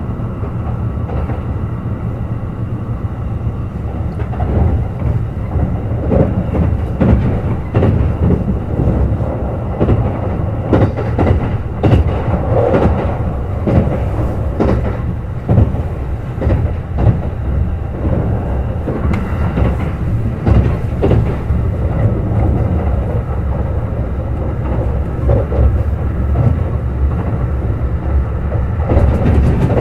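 Kintetsu 21000-series Urban Liner Plus limited-express train running at speed: a steady low rumble with many short clacks from the wheels over the rails.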